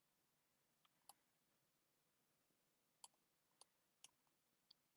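Faint, scattered clicks of a computer input device while drawing, about six sharp clicks at uneven intervals.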